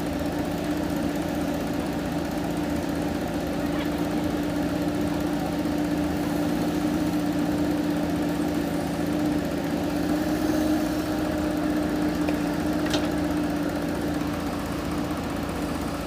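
JCB 3DX backhoe loader's diesel engine running steadily while the backhoe digs and swings a load of soil.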